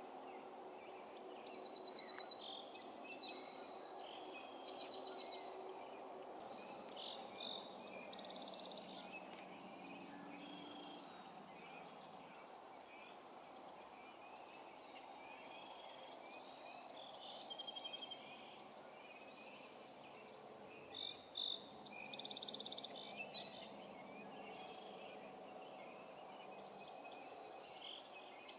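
Songbirds singing in a dawn chorus: short high chirps and trills come and go, loudest a rapid trill about two seconds in and a burst of calls around twenty-one to twenty-three seconds. A steady faint rumble of background noise runs beneath them.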